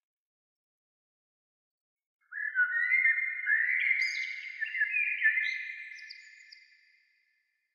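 Bird song: a run of clear whistled notes with pitch glides, several overlapping, starting abruptly about two seconds in and fading away near the end.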